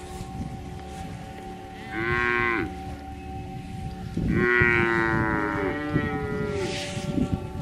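Cows mooing in a pasture: a short moo about two seconds in, then a longer moo of nearly two seconds that falls slightly in pitch.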